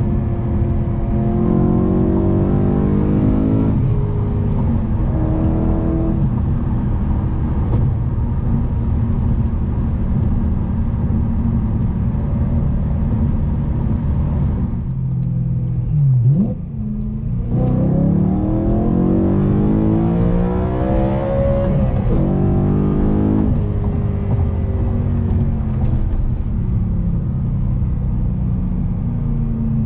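BMW E92 M3's S65 4.0-litre V8 with a muffler delete, accelerating in rising pulls. About halfway through there is a brief lift and a sharp drop-and-rise in pitch, then a long climbing pull before it settles into steadier running.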